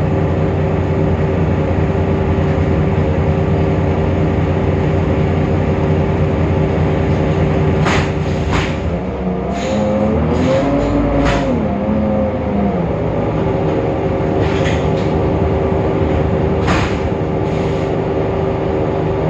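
Temsa Avenue LF city bus's DAF PR 228 six-cylinder diesel running with a steady whine, a sound the uploader finds strange and unlike the normal one. From about 9 to 13 seconds the note rises and then falls again, and a few sharp knocks or rattles are heard.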